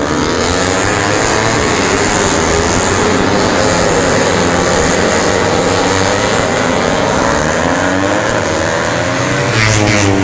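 A pack of Yamaha racing motorcycles revving hard through a corner, with many engines overlapping in wavering pitch. Near the end the sound gets louder as more bikes come past close by.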